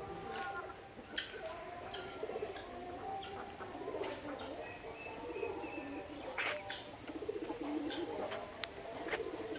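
Birds calling: low, wavering coos overlapping one another, with scattered short chirps and clicks.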